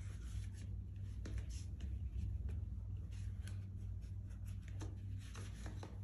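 Leather Birkenstock Madrid Big Buckle slide sandals scuffing and tapping on a tiled floor as the wearer steps and shifts her feet: soft, irregular clicks and rubs over a steady low hum.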